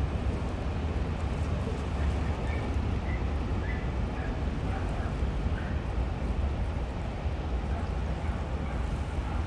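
Steady low rumble of a large passenger ferry's engines as the ship passes close by.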